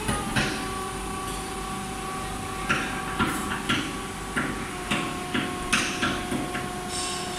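Electric reach truck's hydraulic lift pump motor running with a steady whine as the mast raises the double-deep fork carriage, dipping slightly in pitch about two-thirds through. Short, sharp knocks and clanks come at irregular intervals over it.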